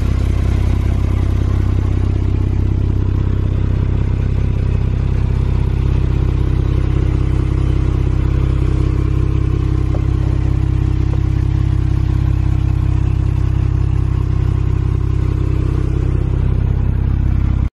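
Porsche 911 Targa 4S flat-six engine idling with a steady low drone while the Targa roof mechanism is operating. The sound cuts off abruptly near the end.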